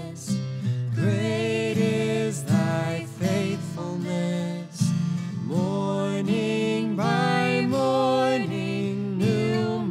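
Christian music with guitar: held, wavering melody notes over a steady accompaniment, with no words heard.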